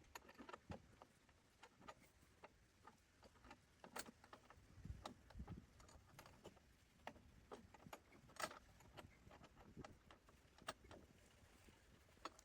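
Faint, irregular clicks, taps and light knocks, like small hard parts being handled and set down, with a couple of duller low knocks about five seconds in.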